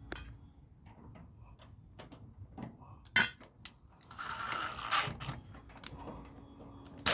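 Scattered mechanical clicks and knocks of hand tools and metal parts being handled, with a loud click about three seconds in, a rustling scrape about a second later, and another sharp click at the end.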